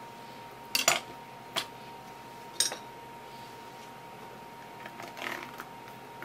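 A steel kitchen knife and a metal spoon clack on a wooden cutting board, loudest as a sharp double clack about a second in, with two more clinks after. Near the end comes a spoon scraping raw flesh off the backbone of a filleted suma (mackerel tuna) in soft, short strokes.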